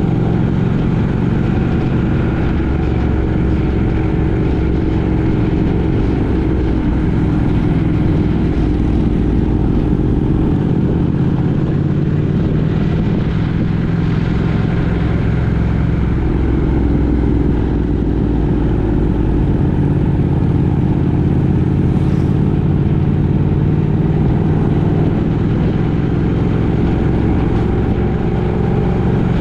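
A road vehicle's engine running continuously over road noise, its pitch shifting a few times as the speed changes.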